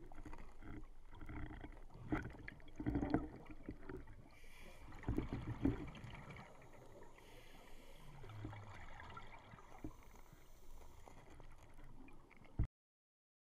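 Muffled underwater noise picked up through a dive camera's housing: faint bubbling and gurgling with scattered clicks and knocks. The sound cuts off abruptly near the end.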